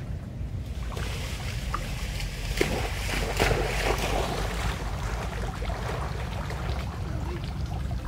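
Water splashing as a macaque swims and scrambles out of shallow flood water onto a sapling, with a burst of splashes in the middle, over a steady low rumble of wind on the microphone.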